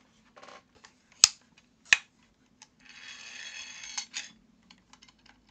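A large soroban-style abacus being picked up and handled: two sharp clicks about a second in and again a little later, then a scraping rustle lasting over a second with a few light clacks near its end.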